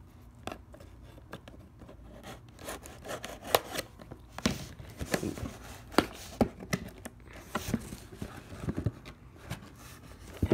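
Seal on a cardboard box being cut and torn open by hand: an irregular run of tearing, scraping and sharp clicks.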